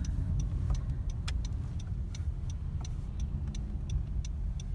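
Inside a car's cabin driving slowly: steady low engine and road rumble, with a turn signal ticking evenly at about three or four clicks a second.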